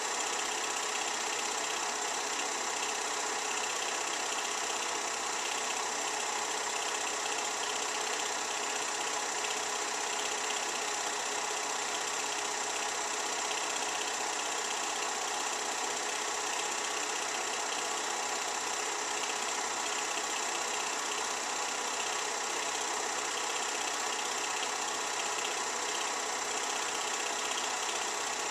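Film projector running: a steady mechanical whirr with hiss, unchanging throughout.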